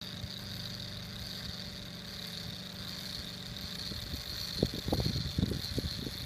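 Gear train of a hand-cranked tellurion orrery turning with a steady low whirr, joined from about four and a half seconds in by a run of irregular knocks and clunks.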